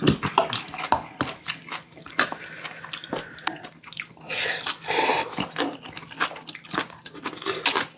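Close-miked eating: chewing and biting, with many small mouth and utensil clicks and a brief noisy rush about halfway through.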